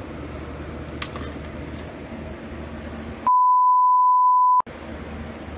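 A censor bleep: one steady high beep lasting just over a second, with all other sound cut out beneath it, covering a swear word. Before it, a steady low background hum and a single faint click about a second in.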